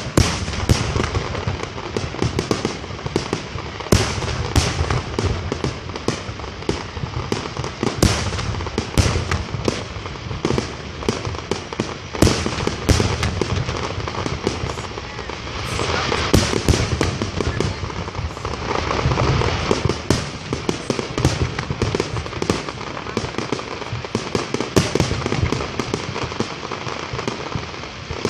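Aerial fireworks display: shells bursting in a dense barrage of sharp bangs in quick succession, over deep low booms.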